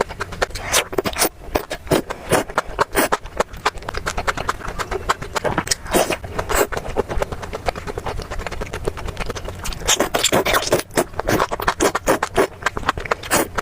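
Close-miked mukbang eating sounds: chewing with a dense run of wet clicks and crackles, and a few fuller bites in between.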